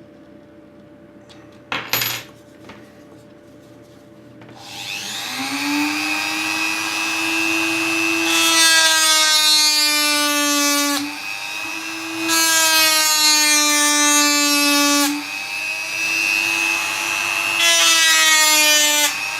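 Mini rotary tool (Dremel-style) fitted with an abrasive grinding stone. After a click, the motor spins up to a steady high whine about four seconds in. Three times the stone is pressed to the work, adding a loud rasping grind while the motor's pitch sags slightly under the load.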